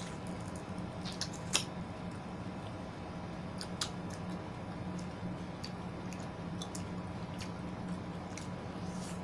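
Close, wet chewing and mouth clicks of people eating juicy fruit (yellow watermelon, pineapple and melon), with scattered sharp clicks, the loudest about one and a half seconds in. A steady low hum runs underneath.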